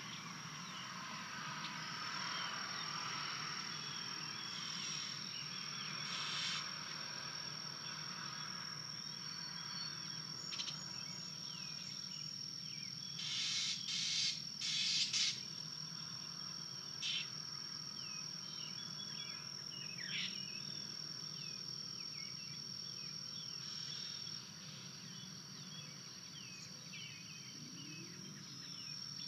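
Evening outdoor ambience: a steady high-pitched insect trill under scattered short bird chirps, with a cluster of brief, louder noisy bursts about halfway through.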